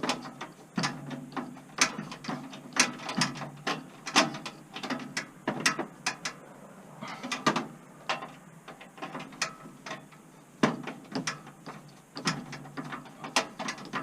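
Screwdriver working a stiff mounting screw, with a run of short, irregular clicks and scrapes throughout.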